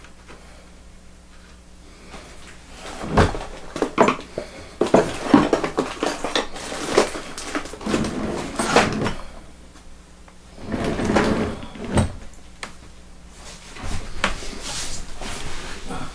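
Handling noise at a wooden workbench: irregular knocks, clicks and rustling as things are moved and shifted about, in several short flurries.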